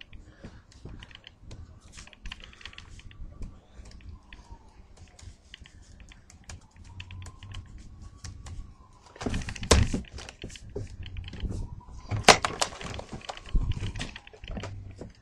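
Typing on a laptop keyboard: quick, irregular runs of key clicks, with louder, heavier hits about ten seconds in and again about twelve seconds in.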